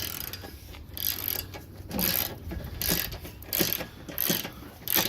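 Hand ratchet wrench clicking in repeated short strokes, about one every three-quarters of a second, as bolts are worked loose during an engine teardown.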